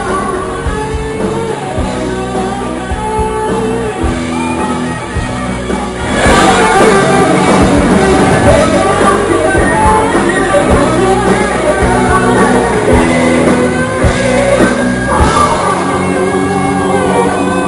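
Live metal band playing, with electric guitars, drums and sung vocals. About six seconds in, the full band comes in much louder and denser after a quieter passage.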